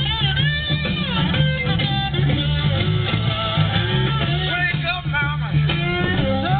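Guitar-driven music with a steady bass line and a bending lead melody.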